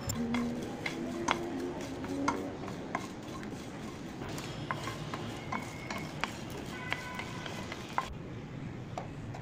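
Wooden spoon stirring whole coriander and cumin seeds with dried red chillies as they dry-roast in a pan: scattered sharp ticks and scraping. The sound breaks off about eight seconds in.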